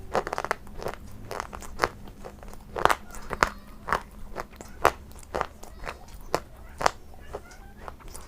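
Close-miked eating sounds: someone biting and chewing a crunchy food, with sharp crunches about twice a second.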